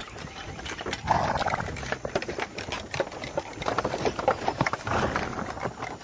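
Horse grazing, tearing up grass and chewing it: a dense run of crisp crunching clicks, louder around a second in and again near the end.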